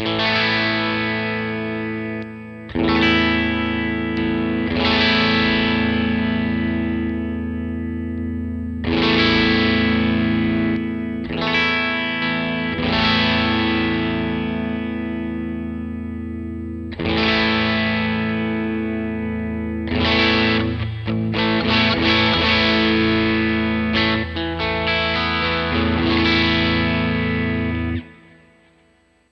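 Electric guitar played through a Vox AC30 amp simulation (STL Tones AmpHub) with a light overdrive: chords are struck and left to ring, with a run of quicker strums a little past the middle, then cut off near the end.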